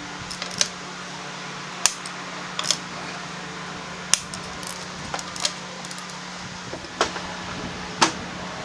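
Metal hand tools and parts clinking and knocking as they are handled and set down during scooter wheel work: about seven separate sharp clinks at irregular intervals over a steady low hum.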